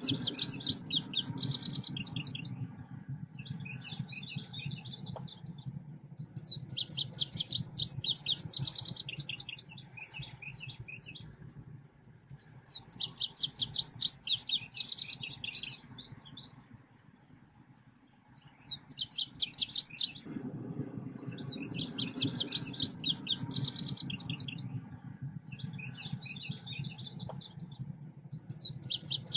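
Recorded song of the selendang biru bird, looped as a lure call: bursts of fast, high chirping phrases repeat about every six seconds, with softer, shorter phrases in between. A low steady hum runs under it and drops out for a few seconds around the middle.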